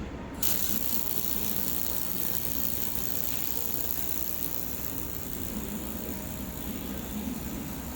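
Handheld laser welder in use: a steady hiss of gas from the welding gun switches on suddenly about half a second in, over the low hum of the machine.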